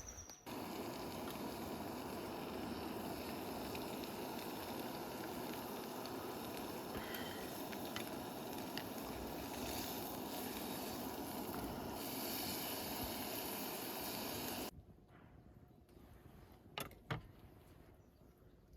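Steady rushing noise that starts suddenly and cuts off abruptly about fifteen seconds in, followed by a few faint clicks.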